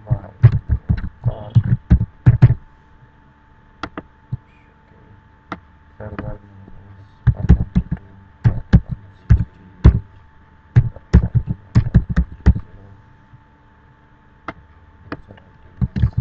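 Computer keyboard keys clacking as text is typed in quick runs of keystrokes, with short pauses between the runs.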